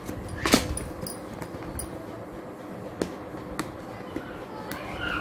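Hands handling and sliding open a small earbuds box: a few light clicks and taps of the packaging, the sharpest about half a second in.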